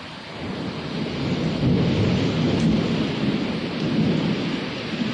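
A long roll of thunder that builds about half a second in, rumbles loudest through the middle and eases slightly near the end, over a steady hiss of falling rain.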